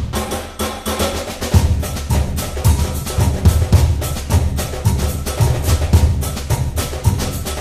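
Background music with a steady drum beat and a pulsing bass, about two beats a second.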